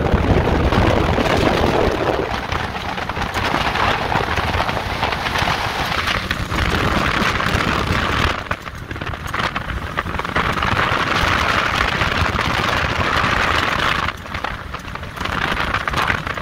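Side-by-side UTV driving fast on a gravel track, heard from the open cab: the engine running at high revs under a steady rush of wind and tyre noise on the gravel. The rush drops briefly about eight seconds in and again about fourteen seconds in.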